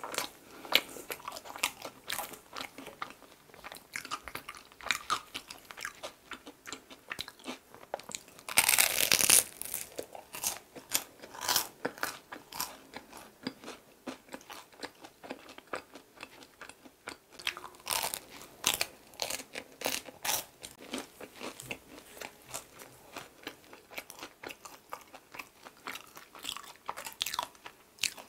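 Crisp-crusted bread being bitten and chewed close to the microphone: a run of irregular, crackly crunches, with one long, loud crunching bite about nine seconds in.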